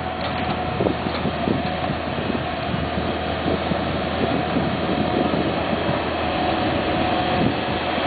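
Skid steer loader's engine running steadily under load as it pushes a grader-blade attachment through loose soil, with a steady whine over the low engine hum.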